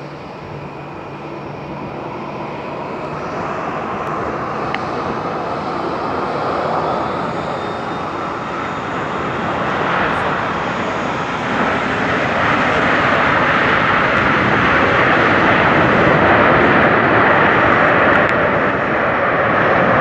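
A Boeing 777-300ER's GE90 jet engines, heard as a broad roar as the airliner lands and rolls along the runway. The roar grows steadily louder, steps up about halfway through and stays loud to the end.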